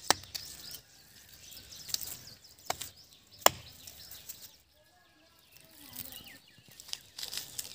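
Dried cow-dung cakes cracking and snapping as they are pried off a mud wall: a handful of sharp cracks spread a second or so apart, the loudest about halfway through.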